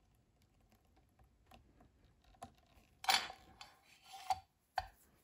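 Pen parts being handled in a pen press: a few light clicks, then a brief scraping rattle of metal and wood about three seconds in as the pen body is taken out of the press, a second rattle a moment later, and a sharp knock near the end.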